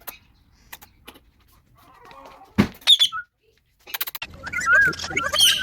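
Pet parrot calling: a few clicks, then a sharp sound and a short high chirp about two and a half seconds in, then rapid warbling chatter from about four seconds in.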